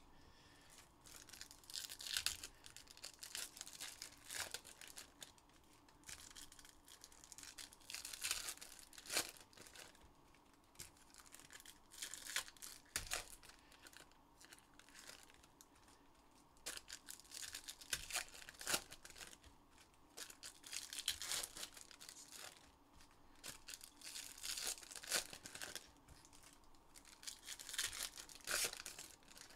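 Trading card packs being torn open: wrappers tearing and crinkling in repeated bursts, with a few sharp clicks from cards being handled.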